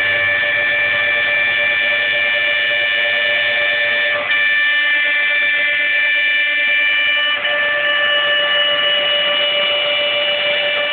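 Homemade CNC mill's spindle motor whining at a steady high pitch while the cutter surfaces the work bed, with short dips about four and seven seconds in.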